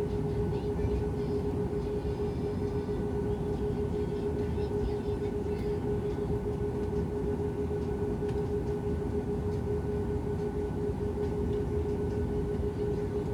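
An airliner's engines running steadily, heard inside the cabin: a constant hum over a low rumble, with no rise or fall.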